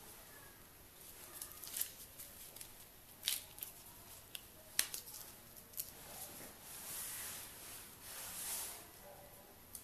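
Soft TPU phone case and paper being handled on a flatbed printer's platform: scattered light clicks and taps, then two longer rustles near the end.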